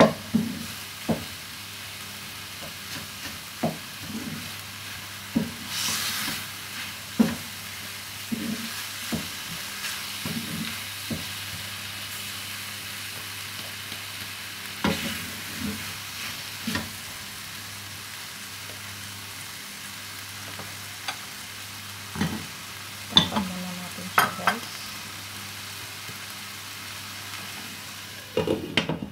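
Food sautéing in a pan with a steady sizzle, while a spoon or spatula stirs and knocks against the pan at irregular moments, with a cluster of sharper clacks about three quarters of the way in.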